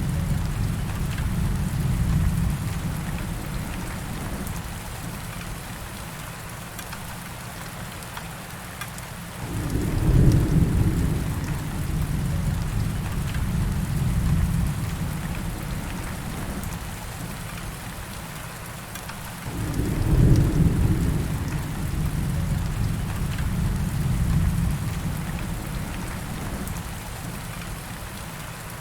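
Steady rainfall in a thunderstorm, with thunder rumbling low beneath it. Two louder peals break out suddenly about ten and twenty seconds in, each rolling away over several seconds.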